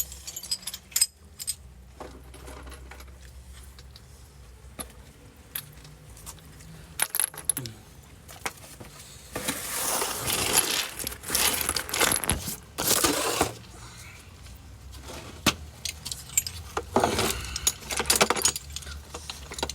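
Metal hand tools clinking and jangling as they are handled, with sharp clicks throughout and a few longer rattling bursts about halfway through and near the end.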